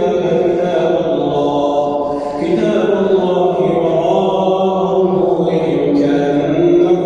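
Imam reciting the Quran aloud during tarawih prayer: a man's voice chanting long, melodic held phrases with brief breaks between them, carried through the mosque's loudspeakers.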